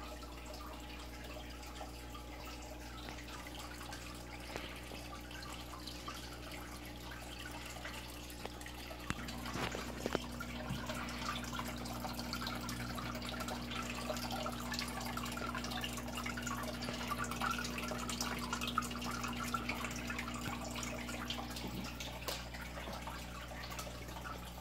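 Aquarium filters and pumps running: water trickling and dripping into the tanks over a steady electric hum, which grows a little louder for several seconds in the middle.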